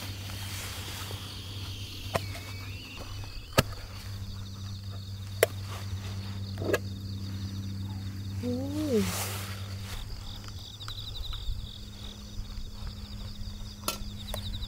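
Crickets trilling steadily, with a few sharp metal clinks as a lightweight camping pot lid is lifted off and handled. A low steady hum runs underneath and stops about two-thirds of the way through.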